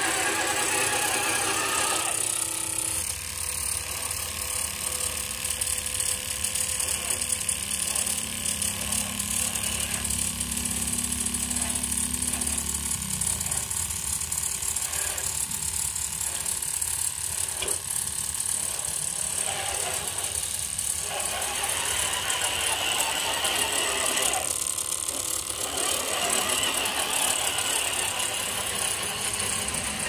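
Remote-control 6x6 truck's electric motor and two-speed gearbox running as it drives, a steady mechanical whine with rattling of the gears and drivetrain. A low drone underneath falls away about thirteen seconds in.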